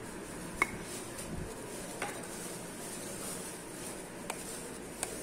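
A hand mixing dry powdered semolina and sugar in a steel bowl: a faint steady rustle with a few light clicks against the bowl.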